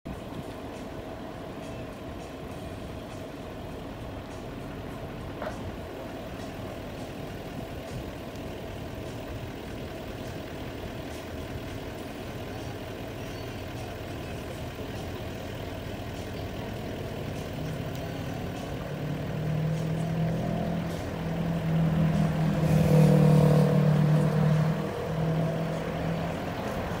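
Outdoor traffic noise with a steady faint hum, and a motor vehicle's engine growing louder over the second half, loudest about two-thirds through, then easing.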